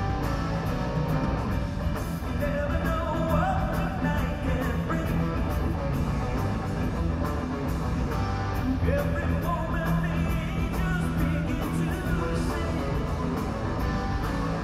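Live rock band playing a song in a large arena: drum kit, bass and electric guitars, with a gliding melody line above.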